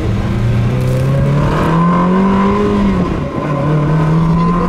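Ferrari 360's V8 engine pulling hard under full throttle, heard from inside the cabin: the engine note climbs, dips at an upshift about three seconds in, then climbs again.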